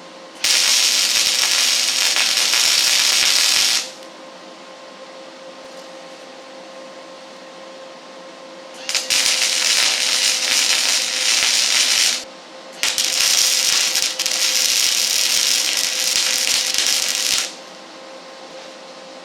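Arc welder tack-welding parts in place: three bursts of crackling hiss, the first about three seconds long, the second about three seconds, and the last about four and a half seconds.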